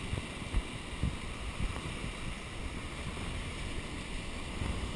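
Wind rumbling on a GoPro's microphone over the steady wash of surf on the beach, with a few brief low thumps from gusts.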